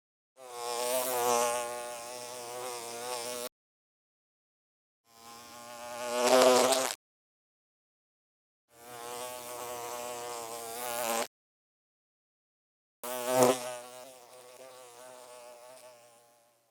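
A bee buzzing in flight in four separate passes, each a wavering buzz broken by silence. The second swells louder and cuts off sharply, and the last starts loud and fades away.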